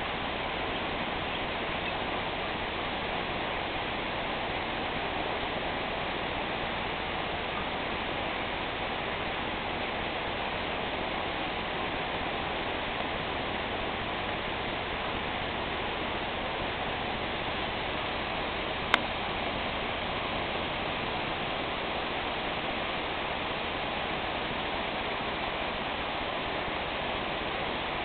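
Steady rush of a waterfall, an even wash of noise with no change in level, broken once about two-thirds of the way through by a single sharp click.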